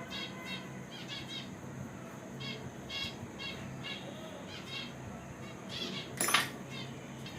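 Small birds chirping repeatedly in the background, short high calls about once or twice a second, over a low steady hum, with a brief rustle or clatter about six seconds in.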